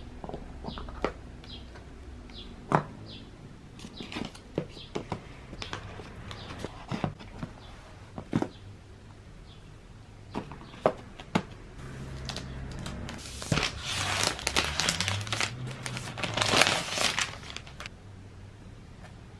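Hands handling a laptop's cardboard box and its packed parts: scattered light clicks and taps for the first dozen seconds, then several seconds of louder rustling and crinkling of packaging in the second half.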